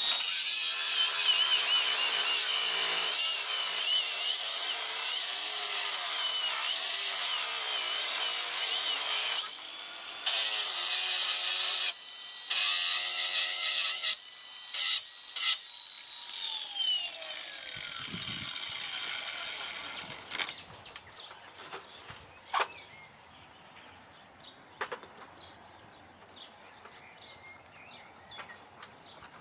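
A diamond grinder cutting into tiger's eye stone, its motor whine wavering under load for about nine seconds. It then stops and starts in several short bursts. About halfway through the motor winds down in one long falling whine, leaving only faint clicks and handling sounds.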